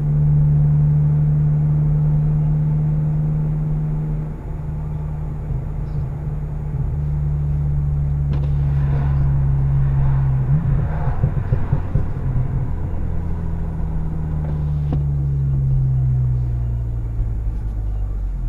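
VW Golf GTI Mk7's turbocharged 2.0-litre four-cylinder running through an APR downpipe and Magnaflow cat-back exhaust, a steady loud drone that drops in level about four seconds in. Around the middle it turns rough and uneven for a few seconds, and near the end the pitch slides down as the revs fall.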